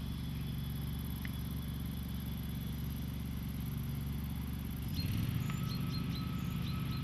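A steady low engine hum, a little louder for the last two seconds, with a few short high chirps near the end.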